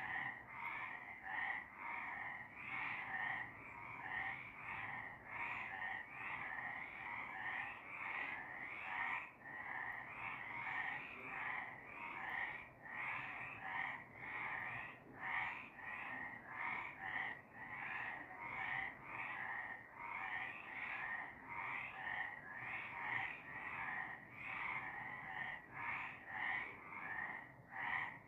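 Several frogs croaking in a steady chorus, their calls repeating and overlapping at about one or two a second.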